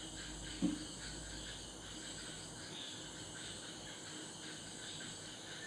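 Steady high chirping of insects, such as crickets, pulsing evenly, with a single short low thump about half a second in.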